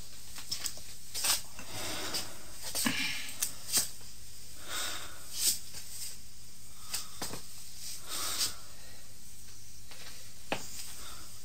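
Soft, uneven breaths and sighs with a few light clicks in a small room: a man going under after a sedative injection.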